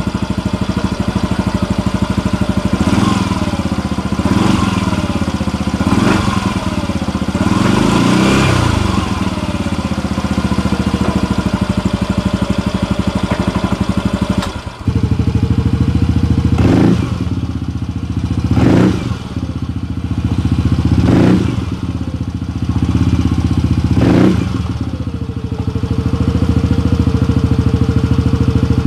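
Yamaha Mio i 125 scooter's single-cylinder four-stroke engine through a JVT V3 aftermarket exhaust, idling and being revved with the throttle. It goes through several rising and falling revs, drops briefly about halfway, then gives four short sharp throttle blips and settles back to a steady idle.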